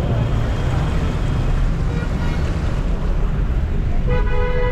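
Steady rushing of floodwater and rain around a car driving through a flooded road, heard from inside the car. Near the end a car horn starts a steady honk.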